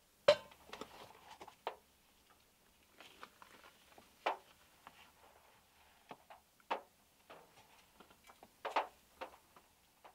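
Scattered, irregular taps and knocks inside a small enclosed space, spaced a second or so apart, the loudest just after the start.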